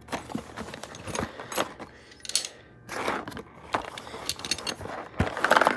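Small metal door-closer parts clinking and rattling as they are handled, in irregular clicks with a denser clatter near the middle and the end.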